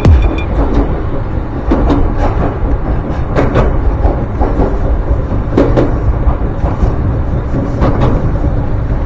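Ryutetsu Nagareyama Line electric train running: a steady rumble, with pairs of wheel clacks over rail joints every couple of seconds.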